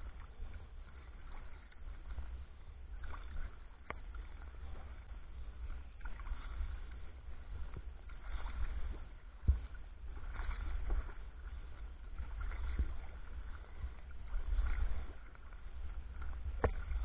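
Kayak being paddled with a wooden Greenland paddle: paddle strokes splashing in the water, swelling about every two seconds, over a constant low rumble. A few sharp knocks come through, the loudest near the end.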